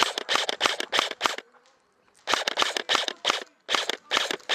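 Airsoft electric guns (AEGs) firing rapid strings of sharp snapping shots. There is a pause of just under a second, about a second and a half in, before the firing starts again.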